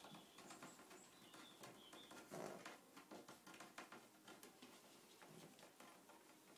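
Faint scuffling and soft high squeaks of six-week-old puppies wrestling together.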